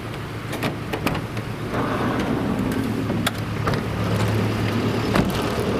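A motor vehicle engine running with a steady low hum that swells through the middle, while a van's door is opened and people climb out, making several sharp clicks and knocks.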